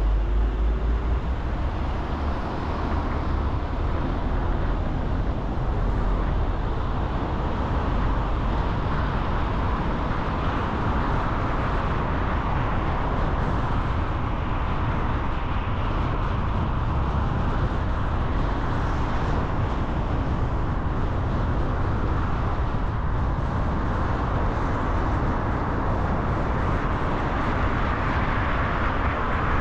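Car driving: steady engine and tyre road noise with a low rumble.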